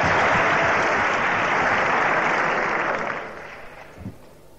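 Large audience applauding, the clapping dying away about three seconds in.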